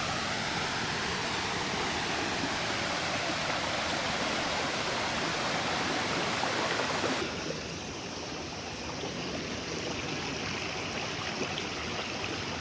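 Rushing water of a rainforest waterfall, a steady, even wash of noise. About seven seconds in it turns suddenly a little quieter and duller.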